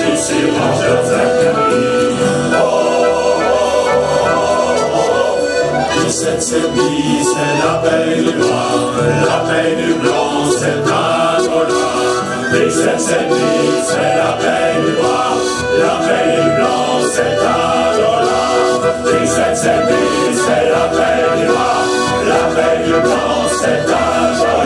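Accordion playing a tune together with a men's choir singing.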